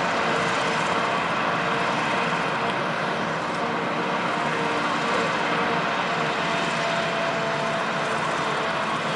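Claas Jaguar 970 self-propelled forage harvester and a Fendt Vario tractor running together while chopping standing wheat for silage. It is a steady machinery drone with a few held tones and no breaks.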